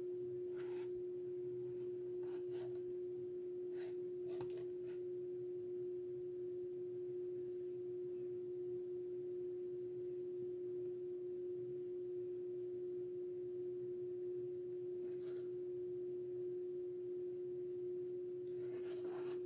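A steady, unwavering single-pitch hum, with a few faint light taps in the first five seconds and again about fifteen seconds in.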